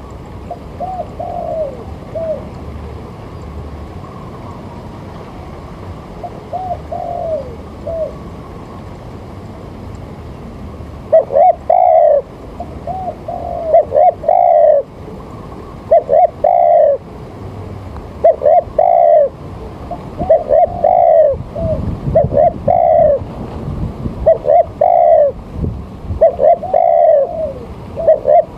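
A bird calling in short arched notes: a few scattered calls at first, then about one every second, louder, from the middle on.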